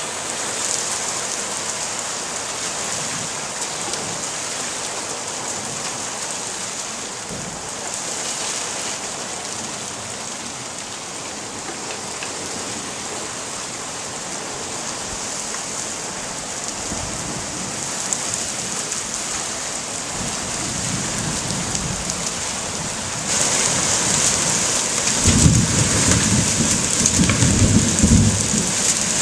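Heavy rain pouring onto a paved patio and garden furniture in a thunderstorm, with low rolling thunder rumbling twice in the latter part, the second time louder. About three-quarters through the downpour turns suddenly heavier as small hailstones mix in with the rain.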